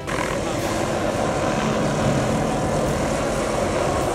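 Hughes 500 helicopter flying low overhead, its rotor and engine running steadily.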